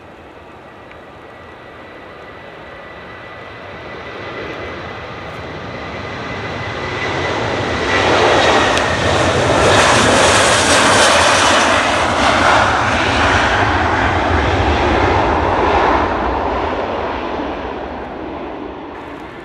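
Boeing 757 jet airliner on its takeoff roll at takeoff power, getting louder as it speeds toward and past, loudest for several seconds in the middle, then fading as it climbs away. A thin high engine whine is heard early and drops in pitch as the jet goes by.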